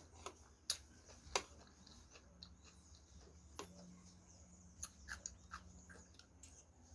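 Close-miked eating sounds: a person chewing food, with scattered small clicks and smacks, two of them sharper about a second in, over a faint steady low hum.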